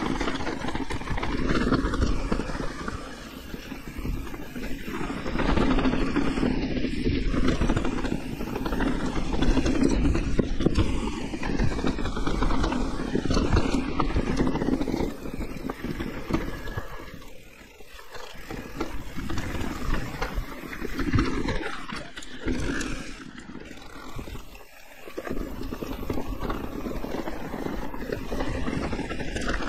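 Wind buffeting the rider's camera microphone, mixed with the tyre and frame noise of a mountain bike descending a rough trail. The rough noise swells and fades, dropping away briefly twice in the second half.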